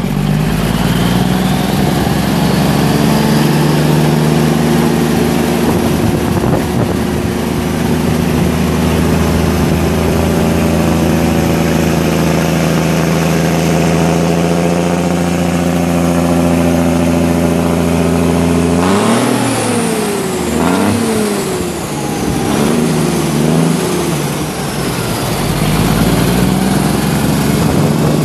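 1975 Kenworth W900's Cummins 335 six-cylinder turbo diesel idling steadily. About two-thirds of the way through it is revved several times, with the pitch rising and falling and a high whistle sweeping down, then it settles back to idle.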